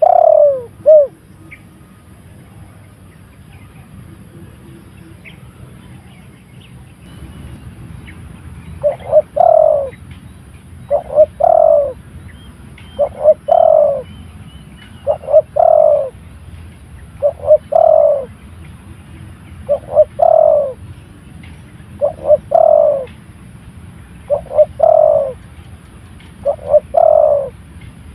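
Spotted dove cooing: a couple of coos at the start, then after a pause a steady series of about nine phrases, one every two seconds or so, each a short note or two followed by a longer falling coo. It is a trained decoy calling to draw in a wild territorial dove.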